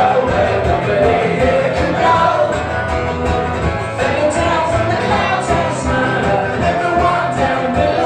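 Live band playing a song with a singer's vocals, loud and continuous, heard from within the crowd at the venue.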